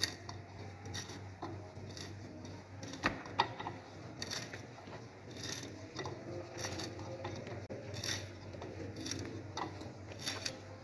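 Hand gimlet's twisted steel bit boring into a wooden board: faint scraping and irregular small clicks as the bit cuts the wood into chips.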